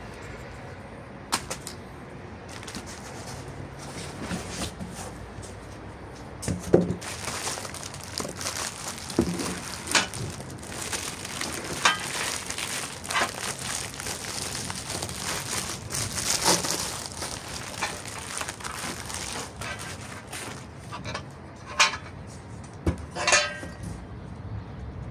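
Unpacking noise: bubble wrap and plastic packaging crinkling and rustling for several seconds mid-way, with scattered clicks and knocks. Near the end come a few sharp knocks as the battery's mounting brackets are handled.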